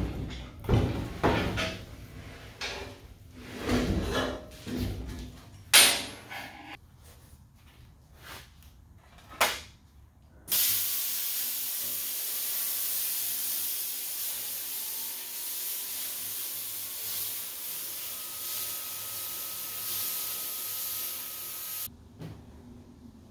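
A few knocks and clanks of handling, then, about ten seconds in, a plasma cutter starts a steady hiss as it cuts the opening for the firebox in the steel end of a 250-gallon tank. The hiss runs about eleven seconds and cuts off suddenly near the end.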